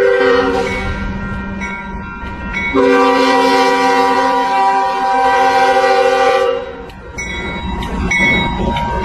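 Train horn sounding a chord of several tones: a short blast, then a long blast of about three and a half seconds, over a low steady rumble of the train running.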